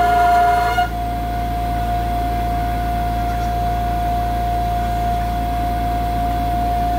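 Spindle of a Pocket NC v2-50 desktop CNC mill whining at a steady high pitch. For just under a second it is drilling the aluminium housing, with a fuller whine, then the drill pulls clear and the spindle spins freely at the same pitch while the machine repositions.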